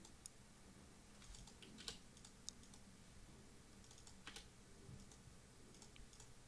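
Near silence with a few faint, scattered clicks from a computer's mouse and keyboard.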